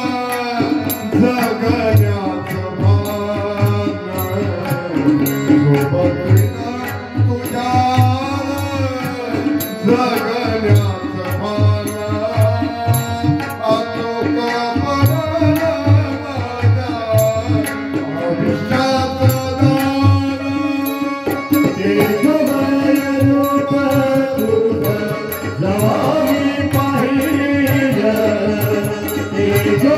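Marathi devotional song to Vitthal: a melody sung in a deep, powerful voice over a steady tabla beat.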